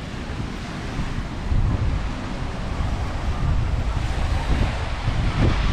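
Ocean surf washing onto a beach, with wind buffeting the microphone in gusts that grow stronger about a second and a half in.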